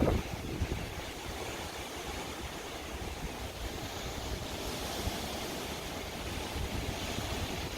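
Hurricane Dorian's strong wind blowing steadily, with gusts buffeting the microphone in a low rumble.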